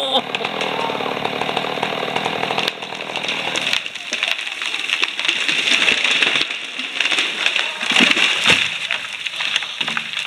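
A chainsaw running: a steady engine note for the first couple of seconds, then a rougher, noisier sound with many short rasps, as when the chain is cutting into wood.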